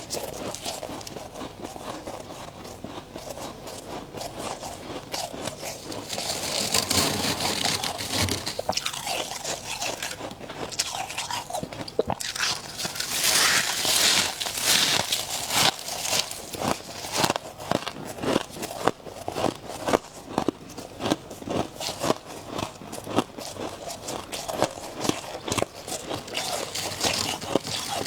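A person biting and chewing crunchy frost and ice close to the microphone, in dense, irregular crunches that fill most of the second half. Two longer hissing, scrape-like stretches come about six and thirteen seconds in.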